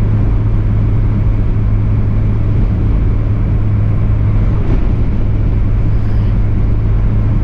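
Steady low drone of a car's engine and road noise heard from inside the cabin while driving at an even speed.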